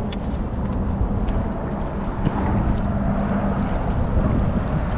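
Wind buffeting the microphone on a small boat, with a steady low motor hum underneath and a few light clicks.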